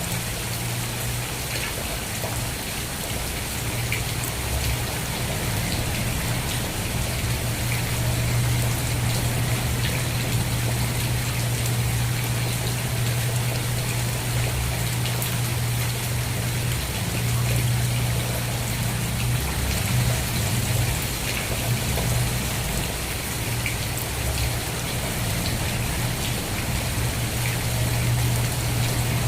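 Steady rain with many small drops pattering, over a steady low rumble.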